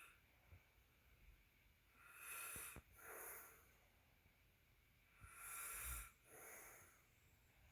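A man snoring faintly: two slow breaths about three seconds apart, each a noisy breath in followed by a breath out.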